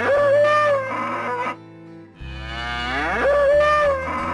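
Bull mooing: two long moos, each rising in pitch and then held. The first ends about a second and a half in, and the second begins just after two seconds.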